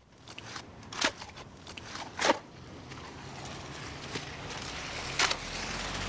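Pickup truck tyres rolling slowly over wet, gravelly mud, crunching, with a few sharp clanks and a low engine hum that builds toward the end.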